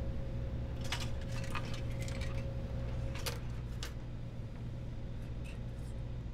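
Small metal parts of a figurine built from old toaster parts clinking and rattling as it is picked up and handled, a handful of light metallic clicks over a low steady hum.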